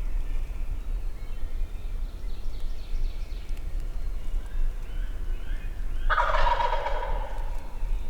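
A wild turkey gobbles once, loud and sudden, about six seconds in; the gobble lasts about a second. Fainter, higher calls come a few seconds before it, over a steady low rumble.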